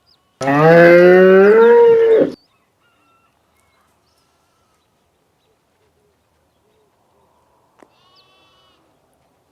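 Cow mooing once, a loud call of about two seconds that rises slightly in pitch. Near the end come a click and a faint short call.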